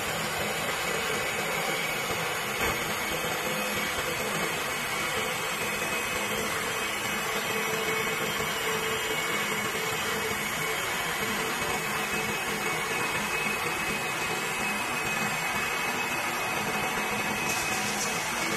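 Twin-spindle CNC wood lathe running and cutting two wooden drumstick blanks at once: a steady machine whir with a faint high whine, and one small click a few seconds in.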